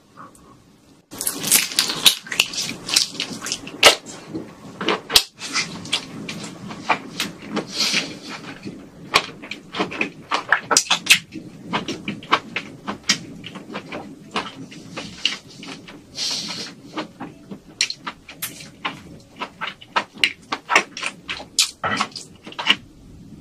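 Close-miked chewing of a large peeled prawn: a dense run of irregular, sharp mouth clicks and smacks that starts about a second in.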